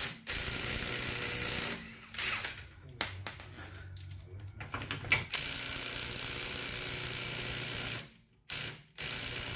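Cordless impact driver with a socket adapter running on a car's wheel nuts to undo them. It goes in several runs of one to three seconds, with a short burst near the end, and clicks and clatter between the runs.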